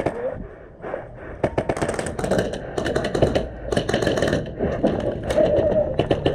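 Airsoft guns firing in several rapid bursts of sharp clicking shots.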